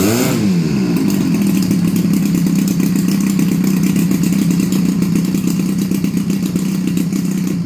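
DLE 222 gas engine of a giant-scale F8F Bearcat model, swinging a large propeller, blipped by a quick throttle jab at the start, its pitch rising and falling back within half a second, then running loudly at a steady speed.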